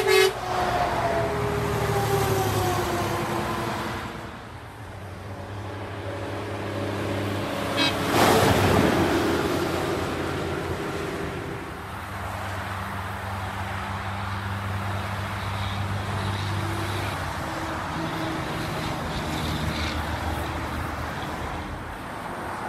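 A short double toot from a Volvo VNR semi truck's Hadley air horn right at the start, then the truck's diesel engine passing with falling pitch. Steady highway traffic follows, with a vehicle passing close about eight seconds in.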